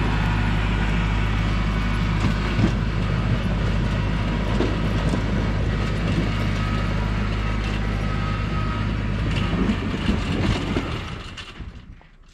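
Kubota L3301 tractor's three-cylinder diesel engine running steadily, with clanking and rattling of metal parts. It dies away in the last second or two.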